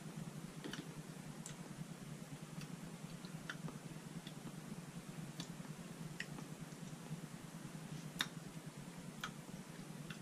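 Faint, irregular small mouth clicks and lip smacks while tasting a spoonful of hot sauce, over a steady low hum, with one sharper click about eight seconds in.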